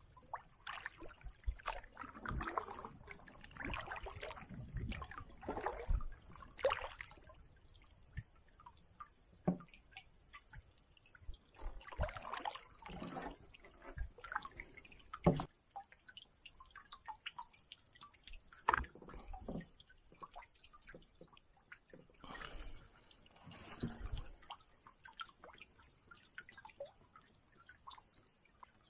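Canoe paddle strokes in calm water: the blade dipping and pulling, with drips and small splashes off the paddle in irregular groups every few seconds, and a few sharper knocks.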